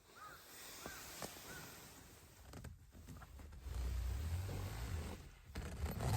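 A bird calls three times in quick succession in the first second and a half. A louder low rumbling noise follows for the second half.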